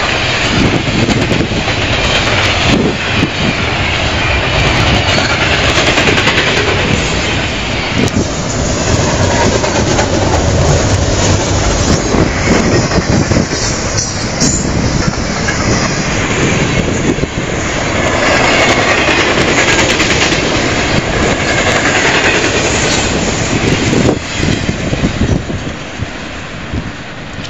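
Fast double-stack container train passing close by: a loud, steady rush of wheels on rail with clickety-clack. Near the end the noise drops away as the last car goes by and the train moves off.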